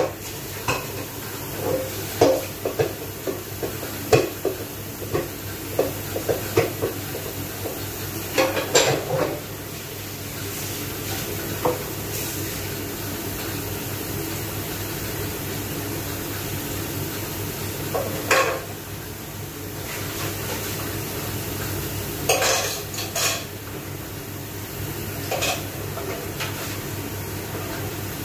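Dishes and utensils clinking and clattering in a kitchen sink as they are handled and washed. The knocks are dense for the first ten seconds, then come only now and then, over a steady low hum.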